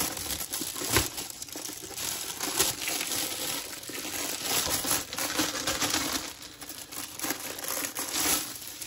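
Thin clear plastic dust cover crinkling and rustling as hands pull it off a rolled canvas, with a light knock about a second in.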